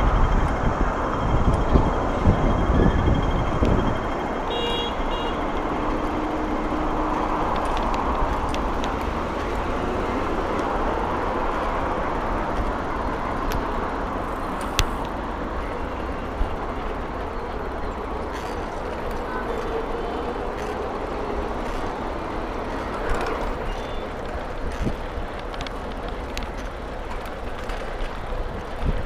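Steady road traffic noise heard from a moving bicycle, with wind rumbling on the microphone for the first few seconds. A few brief tones, like a horn or bell, sound about five seconds in.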